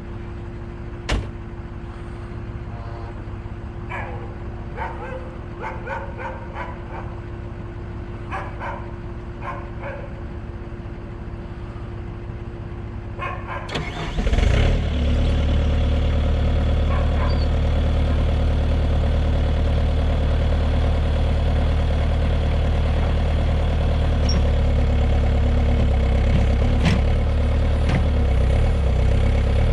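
An engine idling steadily in the background, with a sharp knock about a second in. About halfway through, the Bobcat T300 skid steer's diesel engine cranks briefly, catches and settles into a louder, steady run.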